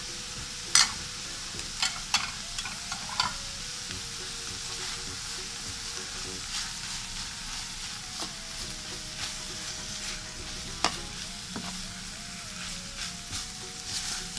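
Tuna sisig sizzling in a steel pan on the stove while a spoon stirs it, scraping and clinking against the pan now and then, loudest about a second in and again near the end.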